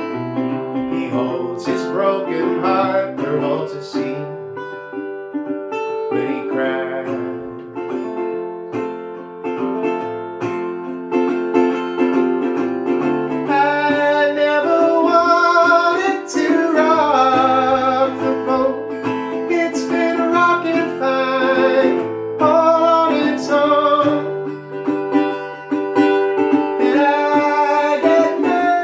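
Old National resonator guitar played in steady picked accompaniment. About halfway through, a wavering, sliding higher melody line comes in over it.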